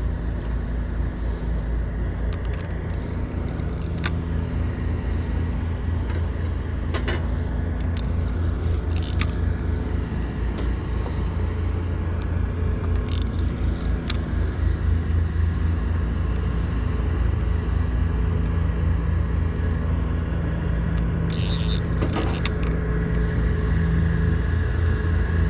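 A steady, low engine drone runs throughout with a constant pitch and a rumble beneath it. Short bursts of high clicking come three times: about 8 seconds in, about 13 seconds in, and near the end.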